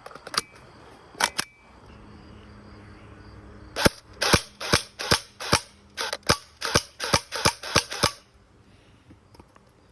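Airsoft AEG (electric airsoft rifle) firing: a couple of single sharp snaps in the first second and a half, then a steady string of about a dozen shots at roughly three a second, stopping after about eight seconds.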